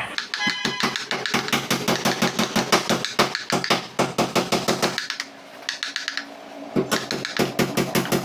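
Claw hammer tapping a wooden-handled chisel as it cuts a carved pattern into a wooden door panel: quick, evenly spaced taps, several a second, stopping for a moment past the middle before starting again.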